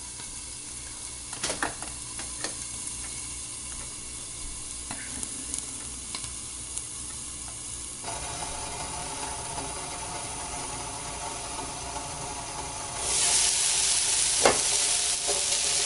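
Chicken and vegetable stir fry sizzling in a frying pan under a stainless steel lid, the sound muffled. About thirteen seconds in the lid is lifted off and the sizzling suddenly gets louder, followed by a metal clink as the lid is set down.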